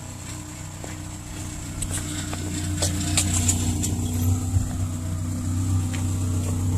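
A motor running steadily with a low hum that grows slowly louder, with scattered light clicks and taps over it.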